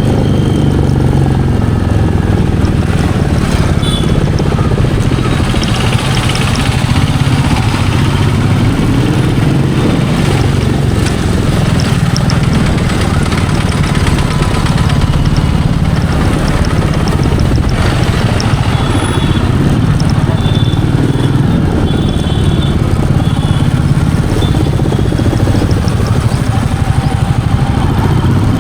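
Royal Enfield Meteor 350's single-cylinder engine running steadily as the motorcycle is ridden, its note rising and falling a little with the throttle. A few short high beeps come through near the middle and later on.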